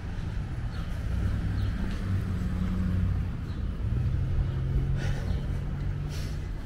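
Road vehicle engines running in a low, steady hum whose pitch steps up about four seconds in, as a vehicle pulls away. A few short bird chirps sound over it.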